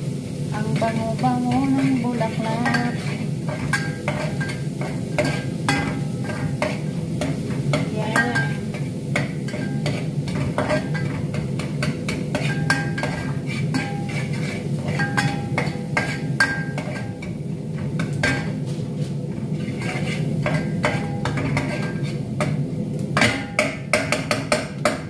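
A cooking utensil stirring and scraping in an aluminium saucepan of sautéing meat, with frequent clicks against the pot over a steady low hum, and a run of louder knocks near the end.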